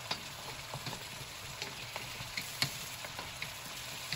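Cubed butternut squash sizzling in oil in a wok while a wooden spoon stirs it, with light scraping taps of the spoon against the pan; the sharpest tap comes about two and a half seconds in.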